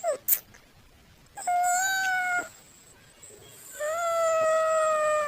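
A domestic cat meowing: a brief falling call, then a meow of about a second held at a fairly steady pitch, then a longer, drawn-out meow starting just before four seconds in.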